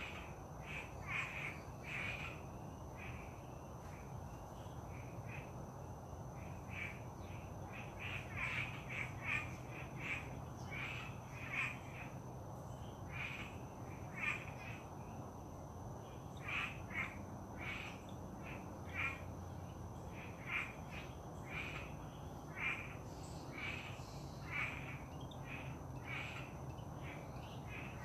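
Birds calling: short, harsh calls repeated irregularly, about one or two a second, over a faint steady background hum.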